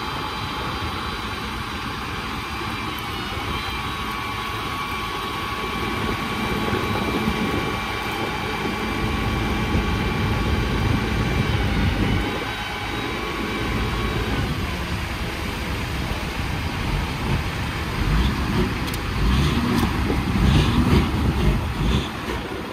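A heavy engine running steadily, with a faint steady high whine over it for much of the time. The sound grows louder and more uneven near the end.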